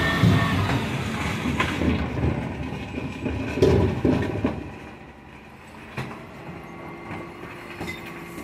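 Bin lorry working on a recycling round: a low engine rumble with knocks and rattles, loud for the first few seconds, then quieter, with a steady hum coming in about two thirds of the way through.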